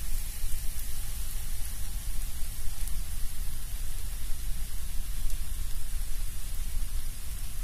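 Steady sizzling hiss from a pan of green peas frying in oil.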